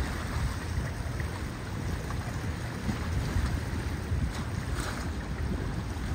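Wind buffeting the microphone in gusts over the steady rush of choppy sea water; no distinct engine note stands out.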